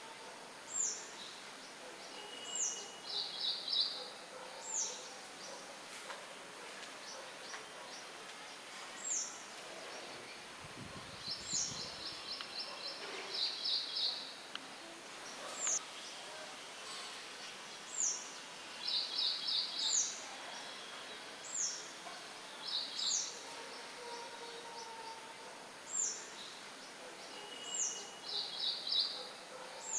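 Songbirds chirping: short, high, down-slurred notes repeated every second or two, with brief buzzy trills now and then, over a steady hiss of wind rustling leaves. A short low rumble comes about eleven seconds in.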